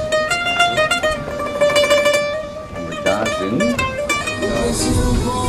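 Acoustic guitar played by a busker: a melody of single picked notes, each ringing on after it is plucked. Passers-by talk briefly about three seconds in.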